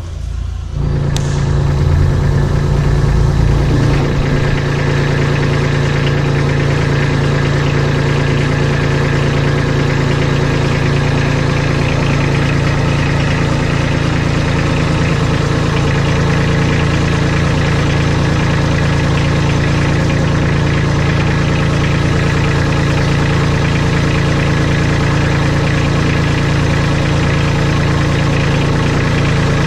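Kubota compact tractor's diesel engine catching about a second in. It runs a little faster for a few seconds, then settles into a steady idle.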